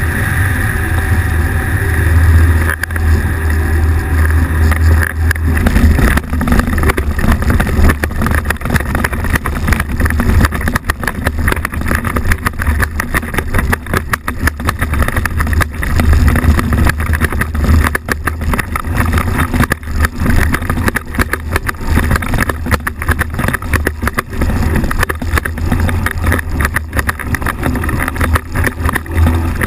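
Microlight trike engine running steadily with a low drone, heard through constant wind buffeting on the microphone.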